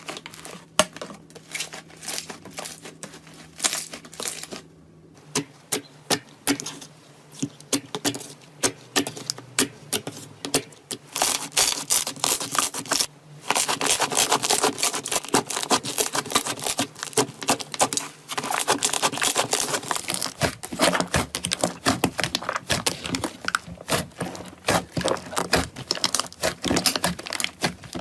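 Slime being squeezed and worked by hand, giving dense, irregular crackling and popping clicks. The sound drops out briefly about 5 seconds in and again about 13 seconds in.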